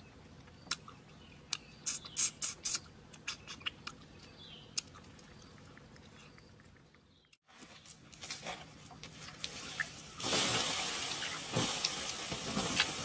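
Sharp clicks and snaps of boiled prawn shells being cracked and peeled by hand. About seven seconds in the sound cuts, and a loud steady hiss with crackles follows as water sizzles on the hot ash and stones of a campfire.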